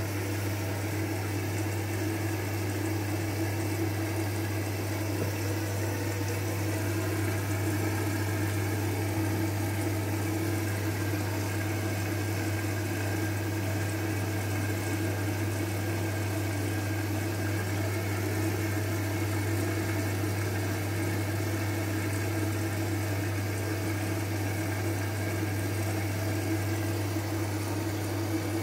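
Bosch VarioPerfect front-loading washing machine running a wash cycle: a steady motor hum with water and laundry churning in the drum.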